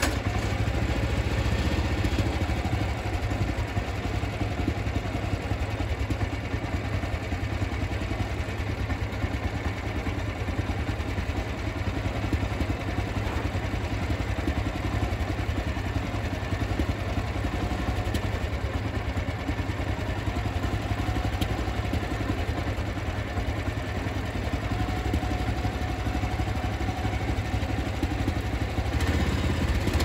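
Woodland Mills portable bandsaw mill's engine idling steadily. Near the end its sound changes and it grows louder.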